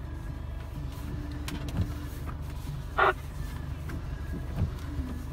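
Pickup truck engine idling steadily, heard from inside the cab, with a short sharp squeak about three seconds in.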